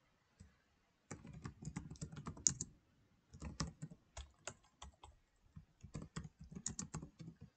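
Typing on a computer keyboard: a quick, irregular run of key presses starting about a second in, with a brief pause near the three-second mark.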